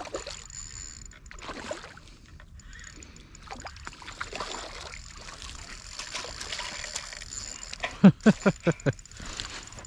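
Water sloshing and splashing as a hooked largemouth bass is fought and brought in, with a quick run of about five loud knocks or flaps near the end.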